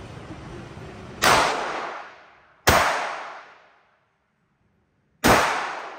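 Three gunshots, about a second and a half and then two and a half seconds apart, each ringing out and fading over a second or more.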